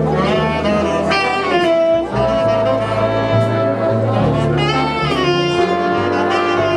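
Jazzy instrumental music with horns, saxophone and brass, playing a melody over a bass line, with swooping phrases about a second in and again near five seconds.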